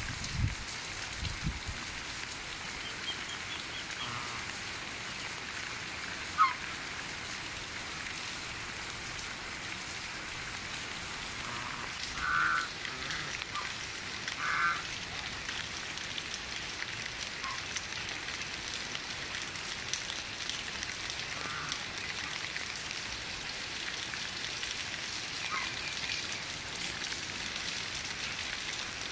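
Steady rain hiss, with a few short honks from domestic geese scattered through and one sharp knock about six seconds in.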